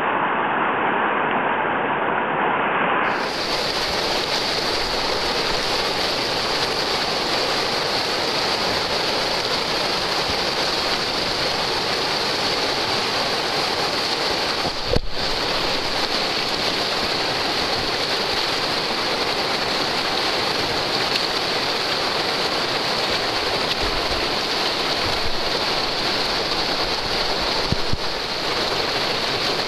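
Rushing whitewater of a river rapid: a steady, loud hiss of churning water, with one brief click about halfway through.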